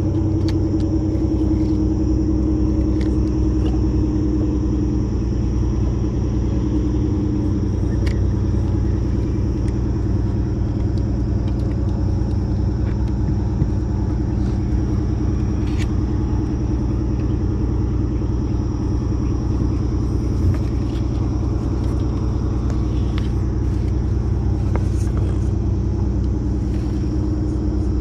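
A boat engine running steadily at an even speed, with a few light clicks over it.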